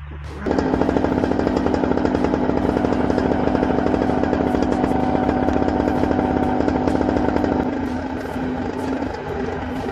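Paramotor engine idling with a rapid, even firing rattle, starting about half a second in; it eases slightly quieter about eight seconds in.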